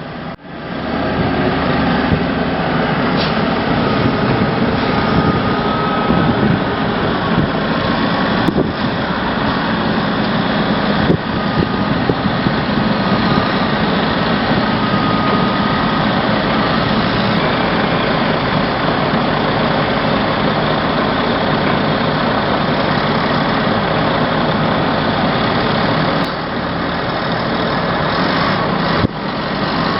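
A heavy machine's engine running steadily, with a faint whine coming and going. The level drops slightly for a few seconds near the end.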